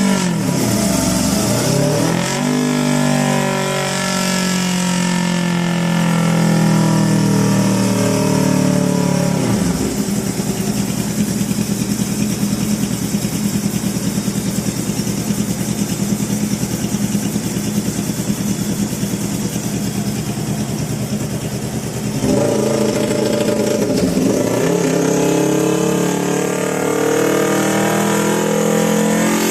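Yamaha R25's 250 cc parallel-twin engine, modified with a custom camshaft and a standalone ECU, revving and climbing in pitch, dropping back about a third of the way in to a steady drone, then pulling up and climbing again near the end.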